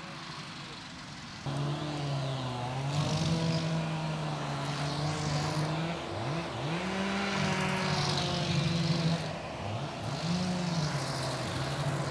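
Engine running under changing throttle: it revs up about a second and a half in, holds, and dips and climbs back in pitch twice.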